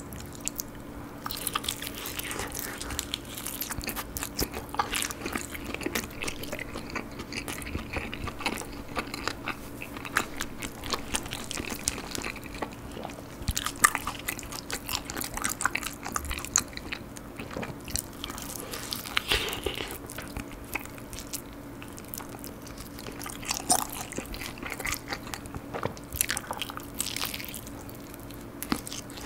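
Close-miked eating of fried chicken: bites into the crispy coating and chewing, with crunches and small wet clicks coming irregularly. A faint steady hum runs underneath.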